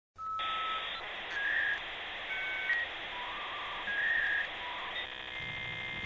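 Electronic intro jingle: about six short held beeps at changing pitches over a hissy bed, turning into a buzzy tone for the last second.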